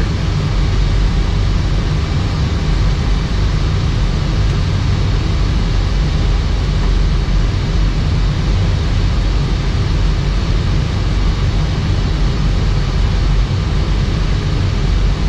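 Airbus A319 flight-deck noise on approach: a steady, even rush of airflow and engine noise, heaviest in the low end, with no breaks or changes.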